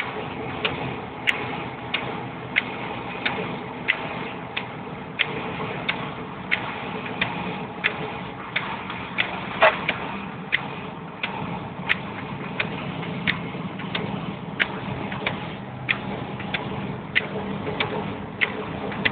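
Inside a car driving on a wet road: a sharp tick about every two-thirds of a second over the steady hum of the engine and tyres, with one louder click about ten seconds in.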